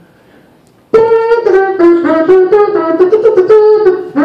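A man's voice imitating a brass horn, starting about a second in with a run of short buzzy notes that step up and down, about three or four a second.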